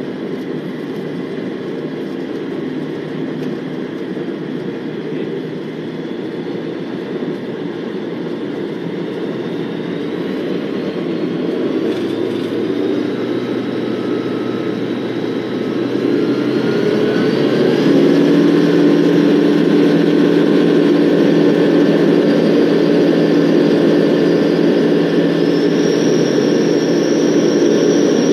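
A Van's RV-12's Rotax 912 flat-four engine and propeller, heard from inside the cockpit, running steadily as the plane moves along the runway. A little past halfway it grows louder in two steps as the throttle is opened to full power for the takeoff roll.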